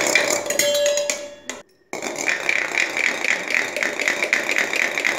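A metal churning rod spun by hand in a small steel pot of yogurt: a steady, rhythmic scraping rattle of metal against steel, pulsing about three times a second. It breaks off briefly about a second and a half in.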